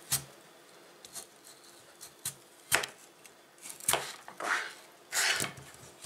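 Kitchen knife cutting a peeled raw potato on a wooden cutting board: several separate knocks as the blade meets the board, irregularly spaced, with short scraping swishes of the blade through the potato.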